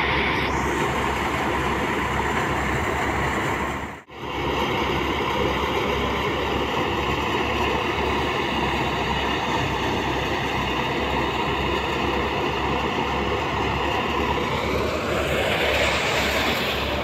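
Tractor-driven paddy thresher running steadily under load, the engine and threshing drum making a dense mechanical din with a steady hum in it. The sound cuts out for a moment about four seconds in, and the pitch rises near the end.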